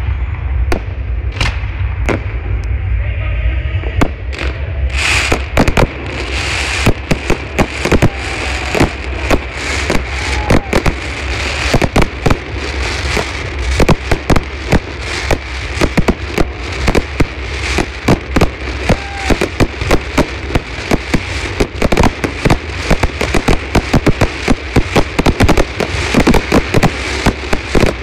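Fireworks display: aerial shells bang and crackle, sparse at first, then about six seconds in they thicken into a rapid, near-continuous barrage of reports.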